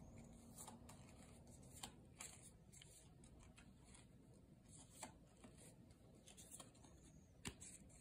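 Near silence: faint room tone with a few brief, faint rustles and clicks.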